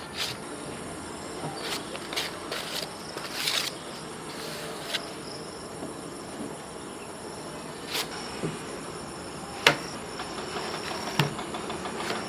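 Scattered sharp clicks and knocks, the loudest about three-quarters of the way through, over a steady high-pitched insect chirring.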